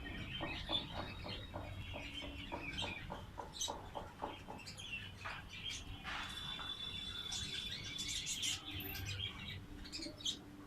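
Pigeons and other birds calling in a rooftop loft, with chirping throughout and a run of short clicking sounds, about four a second, over the first few seconds.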